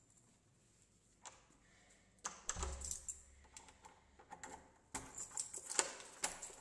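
Keys jangling and a door lock and handle clicking and rattling as a wooden door is unlocked by hand. Quiet at first, then a flurry of sharp clicks starts about two seconds in and grows busier near the end.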